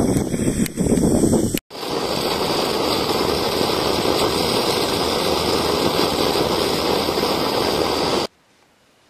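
Open flame burning with a steady rushing roar while the brass burner of a kerosene pressure lantern is heated to burn it clean. It is preceded by about a second and a half of uneven hissing and cuts off abruptly near the end.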